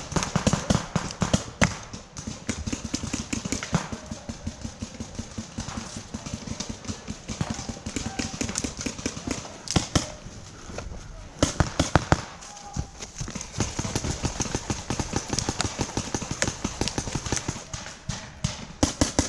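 Paintball markers firing in rapid strings of sharp pops, many shots overlapping, with louder volleys about ten and twelve seconds in.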